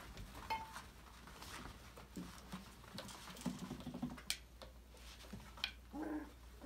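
Young labradoodle puppies at play: scattered patter of small paws and light knocks against plastic toys, with a couple of brief high puppy whimpers or yips, one about half a second in and one near the end.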